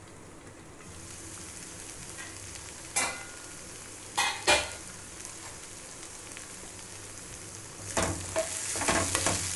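Carrot, potato and capsicum frying with a steady sizzle in a kadai on a gas stove, with a couple of sharp knocks about three and four and a half seconds in. From about eight seconds a spatula stirs and scrapes the half-cooked vegetables around the pan.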